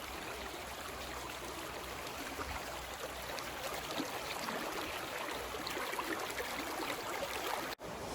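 Creek water running: a steady rush with small scattered splashes, which drops out for a moment near the end.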